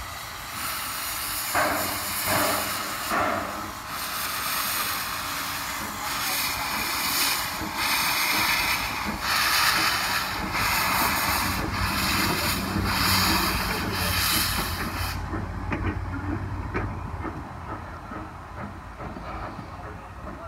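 Steam locomotive moving off with its cylinder cocks open, hissing steam in repeated surges. The hiss cuts off about fifteen seconds in, leaving the rumble and clicking of wheels on the rails.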